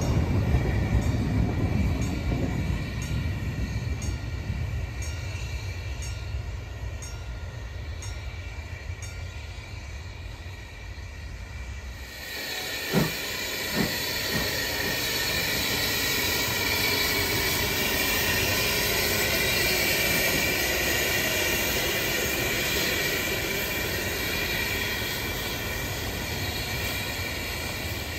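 Narrow-gauge train of coaches rolling away with wheels clicking over rail joints about once a second, fading as it goes. About twelve seconds in, the steady hiss of steam from the JŽ class 73 steam locomotive 73 019 takes over, with two sharp knocks just after it starts.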